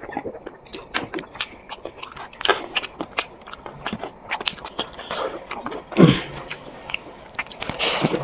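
Close-miked eating: a person chewing and biting through a chicken curry meal with rice, a dense run of wet mouth clicks and smacks, with one louder wet sound about six seconds in.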